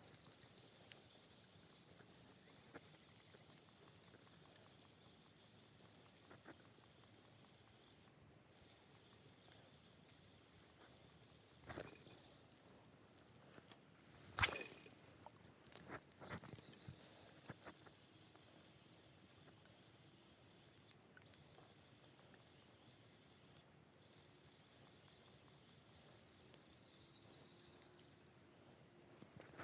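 Faint, steady high-pitched insect chorus that swells and fades and drops out briefly a few times, with scattered sharp clicks and knocks; the loudest click comes about halfway through.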